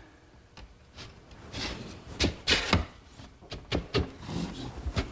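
Mesquite panel and frame pieces knocking and scraping together as the unglued panel is slid into the grooves of its rail and stile. Several short wooden knocks come in the middle, with rubbing between them.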